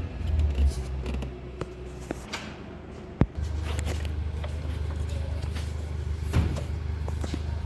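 Opel Grandland 1.6 diesel engine running with a steady low hum, presumably test-run after its timing belt and water pump were replaced. A single sharp click a little past three seconds, with a few lighter knocks around it.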